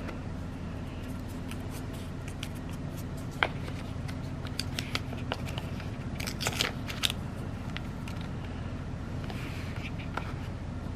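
Cardboard earbud box and its packaging being opened and handled: scattered light clicks and rustles, a sharp tick about three and a half seconds in and a cluster of rustling clicks around six to seven seconds, over a steady low hum.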